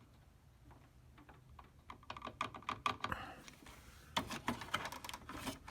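Screwdriver and plastic printer housing clicking and tapping as a screw is worked on: quick, irregular light ticks that start after a quiet second and come in two clusters.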